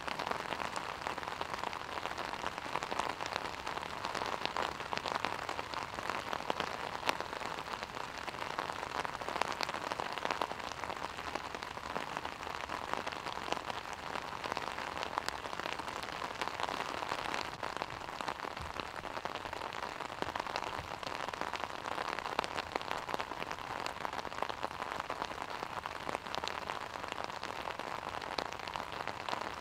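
Steady rain, heard as an even hiss with many sharp ticks of drops striking an umbrella held over the microphone.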